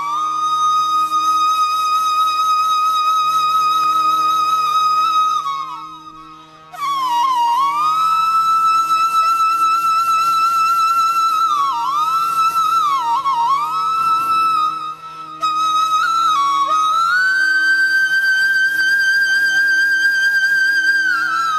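Background flute music: long held flute notes with ornamented bends over a steady drone, with two short pauses between phrases.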